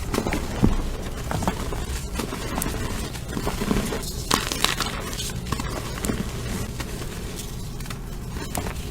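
Gym chalk slime being squished and pressed, crackling and crunching with many small irregular clicks.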